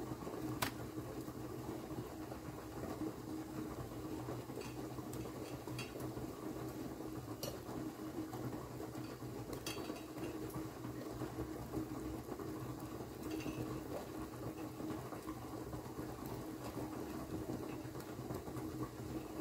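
Tamarind broth (pulusu) simmering steadily in a metal pot, with a faint steady hum under it. A few light clicks and taps of a spoon against the pot come as moong dal fritters are dropped into the broth.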